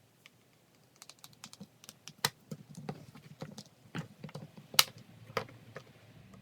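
Irregular light clicks and taps of hands handling a Play-Doh-covered plastic surprise egg while the Play-Doh is pulled off it, with two sharper clicks about two and five seconds in.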